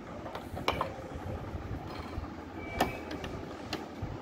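A few light clicks and taps as hands handle the plastic and metal parts around the needle plate, bobbin cover and presser foot of a Brother LX27NT sewing machine, over a steady low background rumble.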